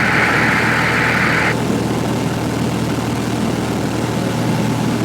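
Cessna 172F's six-cylinder Continental O-300 engine and propeller droning steadily in flight, heard inside the cockpit. A band of static hiss cuts off about a second and a half in.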